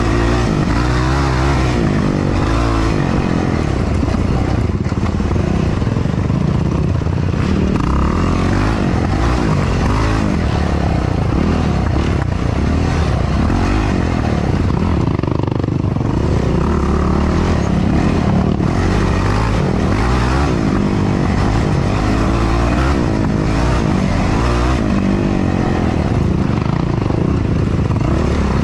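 Yamaha YFZ450R quad's single-cylinder four-stroke engine heard from on board, loud and revving up and down continually as the throttle is worked over a rough trail.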